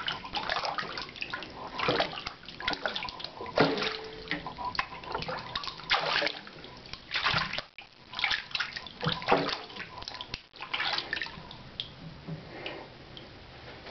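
Water sloshing and splashing in a stainless-steel kitchen sink as hands move about underwater, pulling free of a woven finger trap; the splashing dies down near the end.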